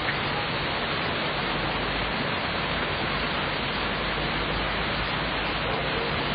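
Steady rain falling: an even hiss with no thunder.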